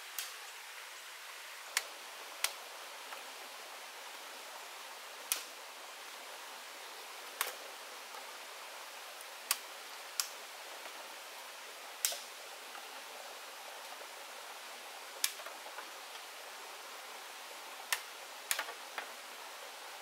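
Steady hiss of running water, with about a dozen sharp, irregular clicks or taps spaced one to three seconds apart.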